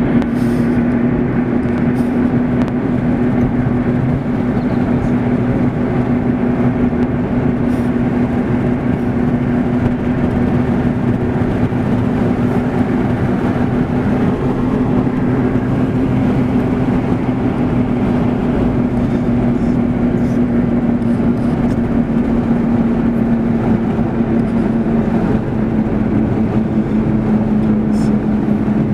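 A car driving at steady speed, heard from inside the cabin: a constant engine drone over continuous road noise.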